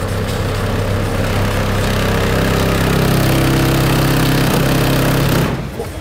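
Deep, steady bass tone played at competition level through an Opel Astra's system of six MDS ZR12D1 subwoofers during an SPL measurement run. Its overtones grow stronger about halfway through, and it cuts off shortly before the end. The meter peaks at 155.9 dB.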